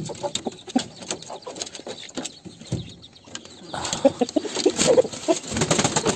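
Chickens shuffling and clucking in a wooden coop, with many small clicks and rustles. About four seconds in it turns to a louder flurry of scuffling and knocks.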